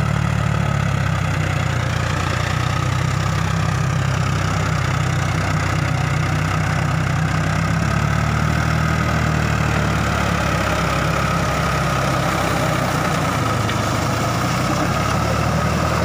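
Farmtrac 6050 4WD tractor's diesel engine running steadily under load, pulling a rotavator through wet paddy mud.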